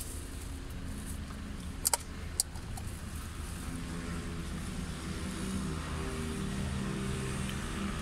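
Stationary car idling, heard from inside the cabin: a steady low rumble with a hum that grows a little stronger in the second half. Two sharp clicks about two seconds in.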